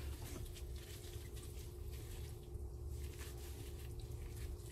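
Faint wet squelching and soft patting of rubber-gloved hands handling raw chicken giblets, over a low steady hum.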